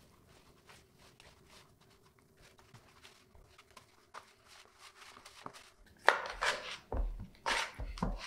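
Dough of flour, water and leaven being mixed by hand in a bowl: faint soft squishing for the first several seconds, then louder irregular squelches and thuds from about six seconds in.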